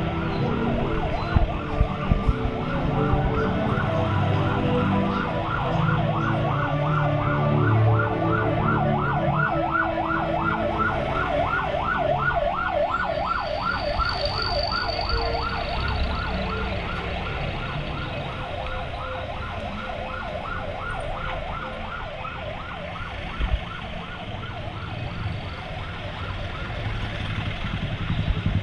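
Emergency-vehicle siren on a fast yelp, rising and falling several times a second, growing louder toward the middle and then fading away. Low rumble of road traffic runs underneath.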